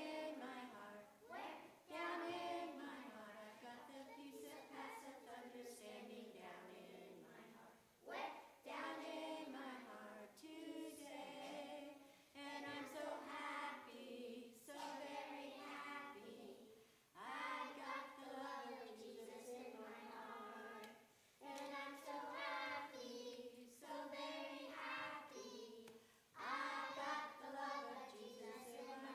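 A group of children singing a song together, in phrases broken by short pauses every few seconds.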